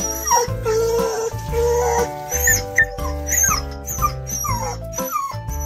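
Shetland sheepdog whining in repeated short, falling whimpers while being bathed, over background music.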